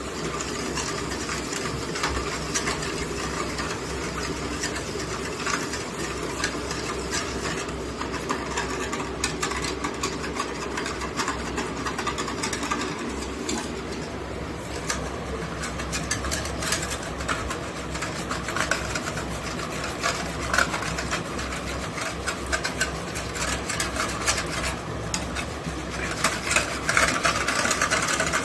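Wire whisk beating a milk mixture in a stainless steel bowl: a continuous, fast scraping clatter of wire against steel through the liquid. It gets louder near the end, when the whisk is spun by rolling its handle between the palms.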